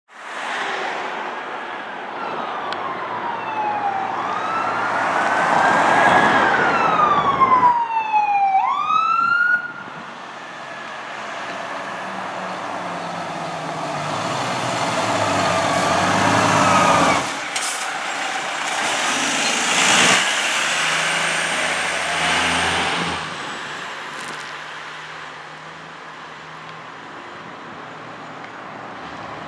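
Emergency vehicle siren wailing, falling and rising in long sweeps, then breaking into a rapid yelp about eight seconds in. After that it settles into a quieter wail over the engine of the passing fire engine, and the level drops lower near the end as the medic squad approaches.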